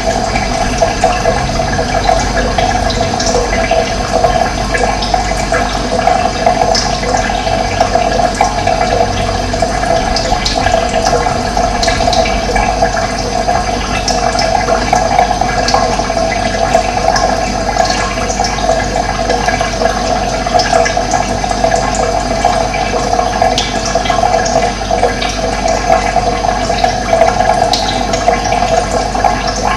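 Steady rush of running water, with brief high bird chirps scattered over it.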